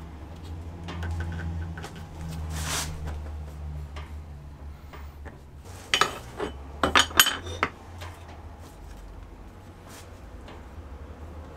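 Aluminium jig plates and metal parts being handled and set against each other, scattered metal clinks with a loud cluster of sharp clatters about six to seven and a half seconds in. A low steady hum runs underneath.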